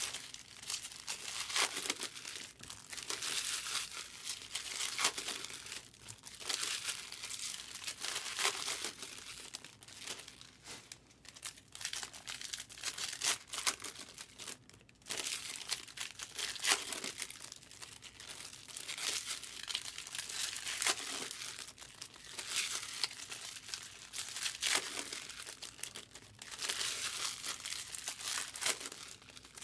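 Foil wrappers of baseball card packs crinkling and tearing as packs are ripped open and handled, in irregular clusters of crackle with short lulls.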